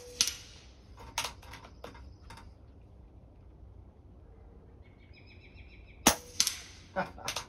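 Shots from a .22 Benjamin Marauder pre-charged pneumatic air rifle at steel silhouette targets. It opens on a sharp smack with a short ringing tail and a few lighter knocks. About six seconds in the rifle fires again with a sharp crack, followed a fraction of a second later by another smack and a quick string of lighter knocks.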